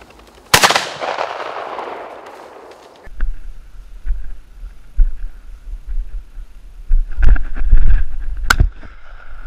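A shotgun shot about half a second in, its report echoing and fading over the next two seconds. Then, with wind rumble and handling knocks on the microphone, a second sharp shotgun shot near the end.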